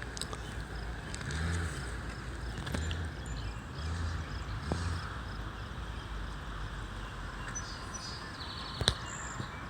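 Outdoor riverside ambience: a steady background noise with a low rumble coming and going in the first half, faint bird chirps near the end, and a single sharp click about nine seconds in.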